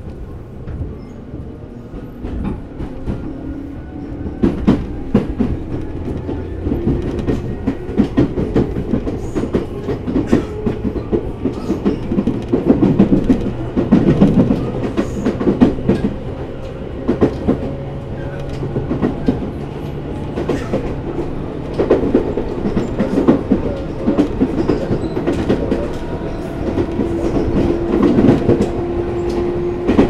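Tobu 10000 series electric train heard from inside a motor car as it accelerates from a station. The traction motors' whine rises in pitch, and the wheels clack over rail joints more and more often as speed builds.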